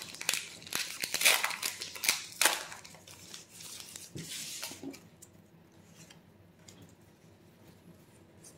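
Rustling and crinkling from handling an opened Pokémon booster pack and its trading cards, loudest in the first few seconds, then dying down to faint flicks and clicks as the stack of cards is shuffled through by hand.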